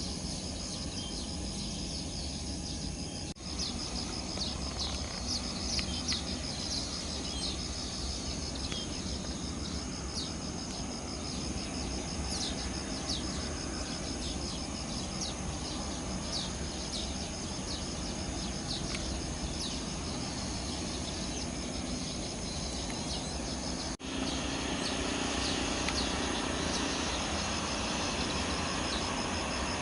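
Outdoor ambience of insects trilling steadily, with scattered short bird chirps over a low steady rumble. The sound cuts abruptly twice, about three seconds in and near the end; after the second cut the background is louder.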